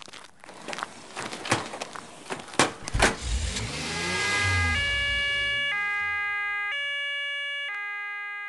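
A quick run of sharp crunches and clicks, then a vehicle rumble and an ambulance's two-tone siren alternating between two notes about once a second, slowly fading.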